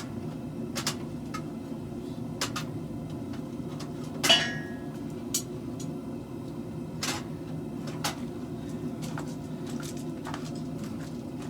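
Scattered light metal clinks and knocks of steel and tools being handled, with one louder ringing clank about four seconds in, over a steady low hum.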